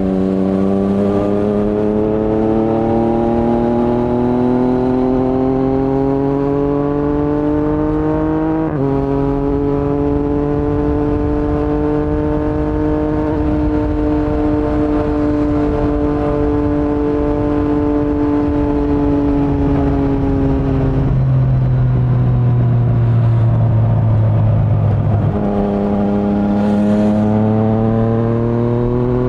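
A 2019 Yamaha MT-09's three-cylinder engine running through an Akrapovic carbon full-system exhaust with no dB killer, under way. The note climbs steadily for about nine seconds, drops sharply at an upshift, then holds at a steady cruise. A little after twenty seconds it falls away as the throttle closes, then climbs again under acceleration near the end.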